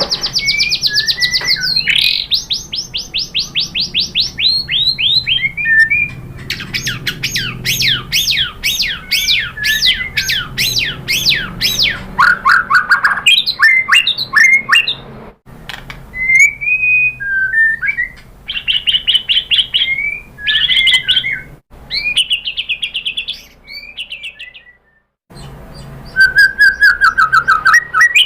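White-rumped shama (murai batu) singing a loud, varied song of rapid trills and runs of fast, repeated downward-sweeping whistles, with a few short pauses between phrases.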